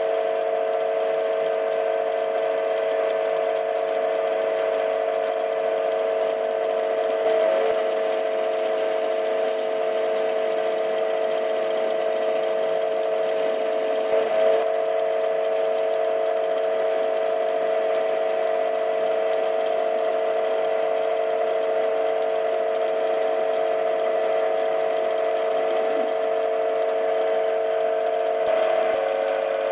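TV16 metal lathe running steadily, its spindle and gearing giving a constant whine, while turning a duralumin blank. A higher hiss joins from about six seconds in until about halfway through, with a couple of faint ticks.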